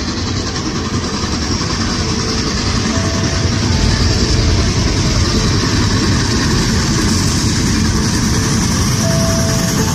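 Reading & Northern 2102, a 4-8-4 steam locomotive, approaching at speed: a steady, heavy rushing noise that builds over the first few seconds and then holds loud.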